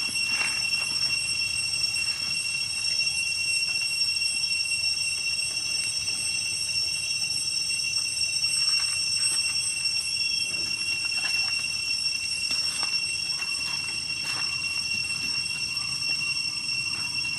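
A steady high-pitched drone of night insects, unbroken, with faint scuffs and taps.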